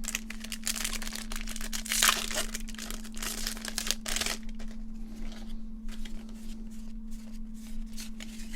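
Foil Pokémon booster pack wrapper being torn open and crinkled, a dense crackling rustle for about four seconds, followed by quieter clicks and rustling of cards being handled.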